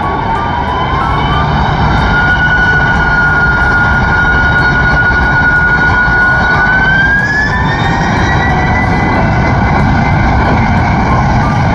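Boeing 767-300ER's twin turbofan engines running loudly at high power, a steady roar under a whine that rises in pitch about a second in and again around seven seconds in as the engines spool up for takeoff.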